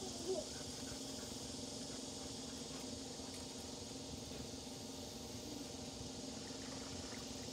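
Quiet outdoor ambience: an even high hiss and a steady low hum, with a brief faint squeak about a third of a second in.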